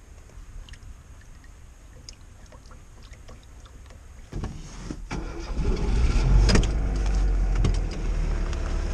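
Lada Zhiguli's inline-four engine starting about four seconds in, then running at a steady idle, after a few light clicks.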